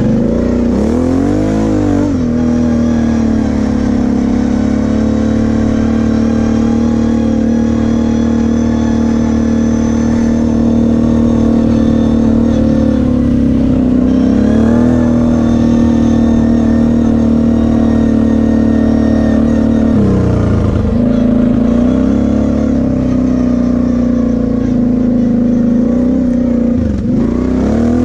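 Kawasaki KFX 700 V-Force quad's V-twin engine running under load at a mostly steady pitch. The pitch briefly drops and climbs again as the throttle is eased and reopened, about a second in, around halfway and twice near the end.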